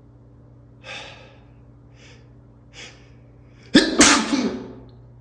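A man's sneeze near the end, loud and sudden, breaking through as he tries to hold it back. It comes after three short, sharp breaths.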